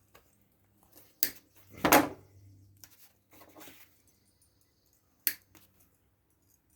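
Wire cutters snipping wires off a hair dryer's metal heating element: a few sharp snaps, the loudest about two seconds in, with faint handling of metal parts between.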